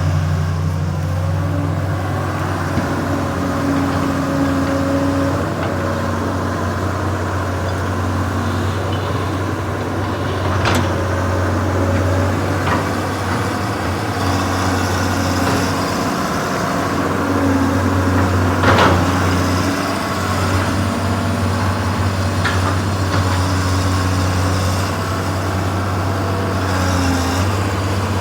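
Caterpillar 315 excavator's diesel engine running steadily, with higher tones coming and going over its low drone and a few brief sharp sounds, the strongest about two-thirds of the way through.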